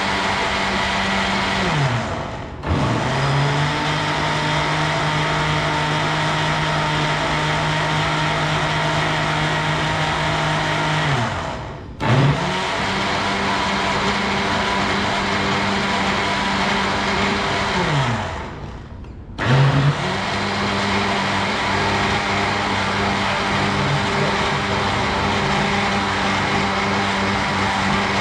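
Countertop blender motor running at speed, blending a fruit and low-fat milk smoothie. Three times it is switched off, its hum falling in pitch as the motor spins down, and is switched straight back on.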